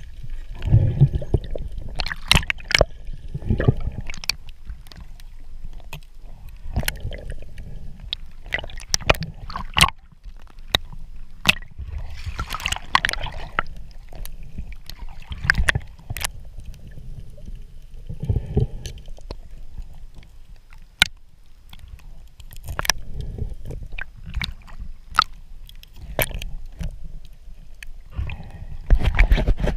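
Underwater water noise picked up by a camera in its housing: muffled sloshing and gurgling with uneven swells, and many sharp clicks scattered irregularly throughout.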